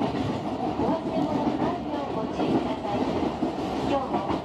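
Tobu 50000 series electric train rolling over the tracks and switches, heard from the front car: a steady running rumble with wheels clattering on the rail joints.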